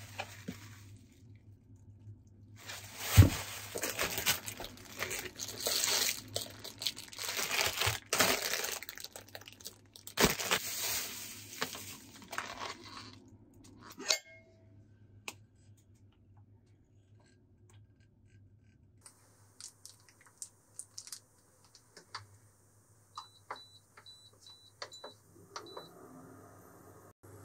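Plastic meat packaging crinkling and tearing as it is opened, with a sharp knock about three seconds in. Later come light clinks of a stainless saucepan, and near the end an induction hob gives a run of five short high beeps.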